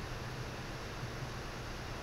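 Steady background hiss with a faint low hum from the recording setup, with no speech.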